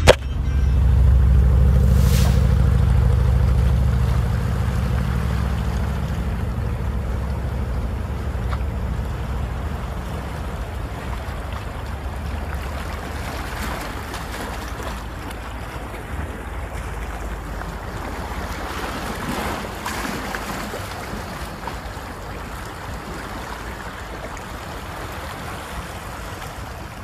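Wind rumbling on the microphone over a steady wash of lagoon water; the rumble is strongest in the first few seconds and slowly dies down.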